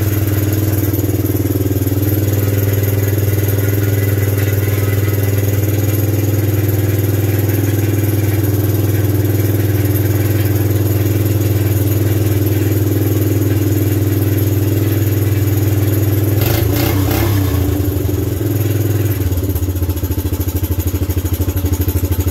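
Suzuki LT125 quad's small air-cooled four-stroke single idling steadily on a freshly fitted aftermarket carburetor. Near the end a brief clatter comes, and then the note drops to a lower, more pulsing beat.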